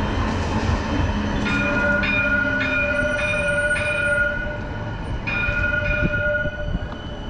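CAF coastal tram pulling away, with a high ringing tone that starts about a second and a half in, breaks off, and comes back briefly near the end, over a low running hum that fades as the tram goes.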